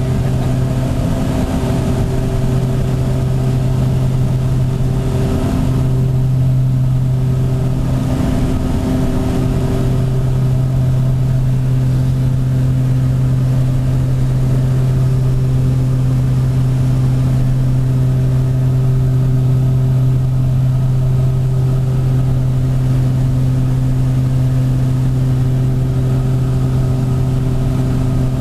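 Cockpit noise of a Beechcraft King Air B100's twin Garrett TPE331 turboprop engines and propellers in cruise-to-approach flight: a loud, steady drone with a strong low hum and several higher tones above it, the upper tones slowly swelling and fading.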